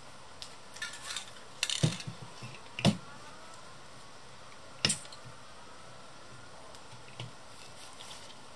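Scattered clinks and knocks of hard objects being handled. The loudest come about two and three seconds in, with another near five seconds.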